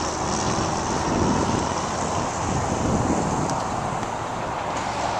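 Steady rush of distant highway traffic, mixed with wind on the microphone.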